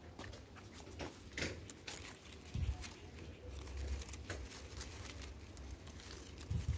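Faint rustling of mai vàng (yellow apricot) leaves being parted by hand, with a few soft clicks and a low rumble of phone handling.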